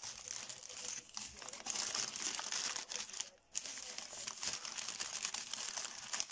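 Plastic packaging crinkling as it is handled: a torn poly mailer and a foil anti-static bag rustle continuously under the hands, with a brief pause about halfway.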